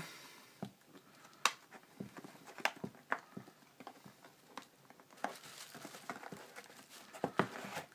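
Thin plastic shrink-wrap crinkling as it is peeled off a cardboard phone box, in irregular sharp crackles and clicks.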